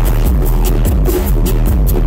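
Loud electronic bass music (dubstep) played live over a club sound system: a heavy, steady sub-bass under a fast, even run of hi-hat ticks.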